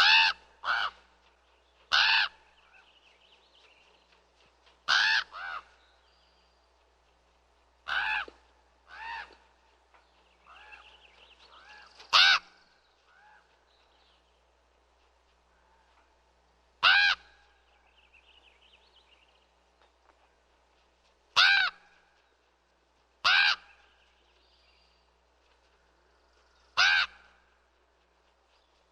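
Common raven giving its common calls, loud and harsh, about a dozen over the stretch, some in quick pairs, with pauses of a few seconds between them.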